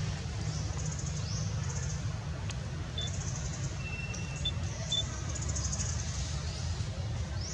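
Forest ambience: a steady low rumble under a pulsing high insect buzz, with three short high chirps between about three and five seconds in.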